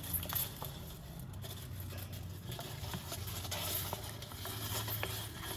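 Light, irregular taps and scratches over a steady low hum.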